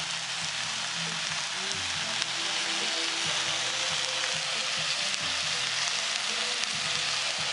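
Sliced onions and mushrooms sizzling steadily in a cast-iron skillet over a charcoal fire.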